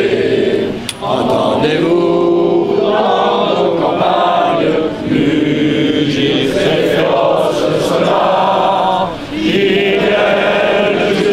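Large crowd singing together in unison, with long held notes and short pauses for breath about a second in, around five seconds in, and near nine seconds in.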